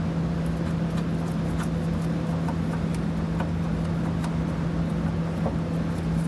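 A steady low hum with one constant tone, under a few faint light clicks of a steel flange nut being spun onto a U-bolt by hand.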